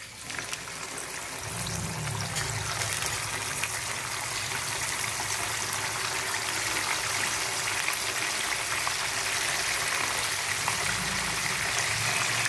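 Whole scad (ikan selayang) frying in a pan of hot oil: a steady sizzle that builds over the first couple of seconds as the fish are laid in one after another, with light crackling spatter.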